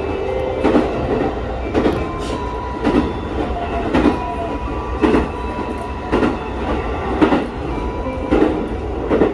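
JR Central 373 series electric train running along the track, heard from on board: a steady rumble with a rhythmic clack of the wheels over rail joints about once a second.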